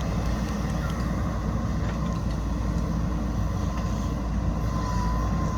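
JCB backhoe loader's diesel engine running steadily with a low rumble.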